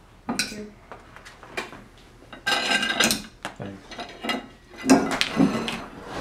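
Serving tongs and cutlery clinking and scraping against dinner plates as steaks are dished out. There are several separate knocks, and a denser, ringing clatter about halfway through.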